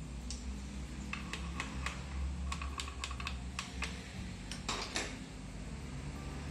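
Light metallic clicks and taps from a long screwdriver and the internal parts of an automatic transmission being worked loose inside its aluminium case. The clicks come in an irregular string, bunching up about five seconds in, over a low steady hum.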